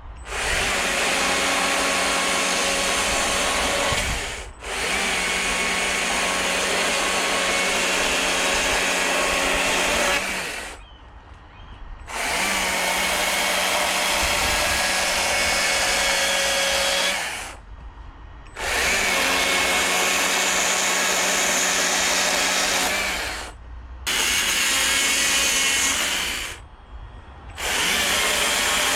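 A power carving tool cutting wood at a steady speed, in stretches of several seconds with short breaks between them.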